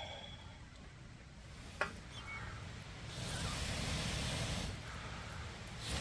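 A sharp click, then a loud hissing noise that starts about halfway through, dips briefly and swells again near the end.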